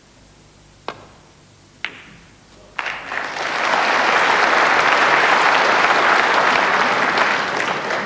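A snooker shot: three sharp clicks about a second apart as the cue and balls strike, then audience applause swelling in about three seconds in and carrying on loudly.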